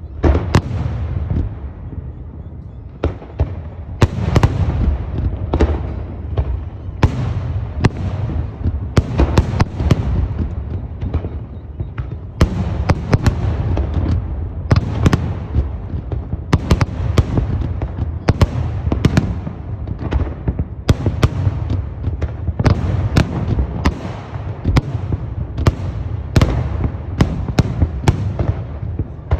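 Fireworks display: aerial shells bursting in quick succession, several sharp bangs a second at times, each with a rolling boom and crackle over a continuous low rumble.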